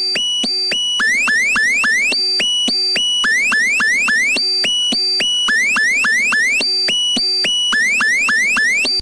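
Loud synthesized electronic loop: a phrase of buzzy held notes, stepped notes and quick rising glides, repeating about every two seconds. It starts and stops abruptly.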